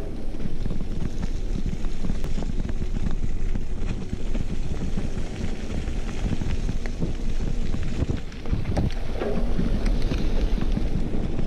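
Wind buffeting the microphone over the rumble of mountain-bike tyres rolling fast on a gravel track. Short clicks and rattles from the bike are scattered throughout.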